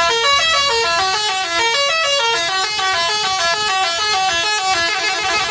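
Telolet bus horn, a multi-tone musical horn, playing a quick tune of stepped notes, about four notes a second.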